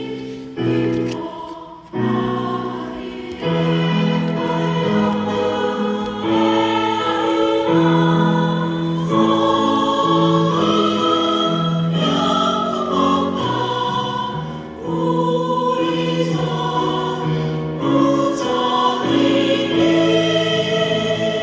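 Choir singing a Korean Buddhist hymn in sustained, held notes that change pitch every second or so.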